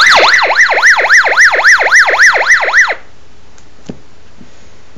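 Emergency alert tone from a Relm BK RPV3600A+ portable two-way radio's speaker: a loud siren-like warble sweeping up and down in pitch about four times a second, cutting off abruptly about three seconds in.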